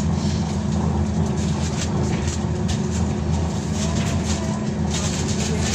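Inside a moving BKM-321 trolleybus: the steady low rumble of the ride, with frequent light rattles from the body and fittings.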